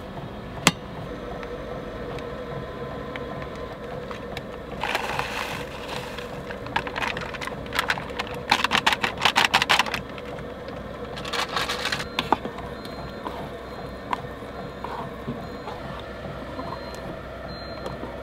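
Kitchen handling sounds over a steady hum: a sharp clink about a second in, bursts of rustling around five and eleven seconds, and a fast run of clicks about eight to ten seconds in, as an insulated tea mug and its lid and foil meal pouches are handled.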